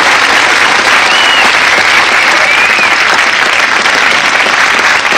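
Studio audience applauding steadily at the end of a song.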